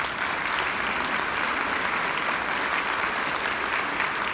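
A large concert audience applauding, a dense, steady sound of many hands clapping.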